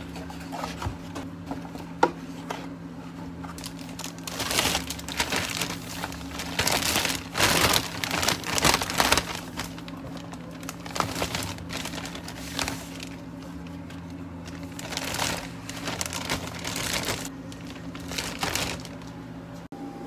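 Large clear plastic bag rustling and crinkling as it is handled, in irregular bursts from about four seconds in, over a steady low hum. A sharp click comes about two seconds in.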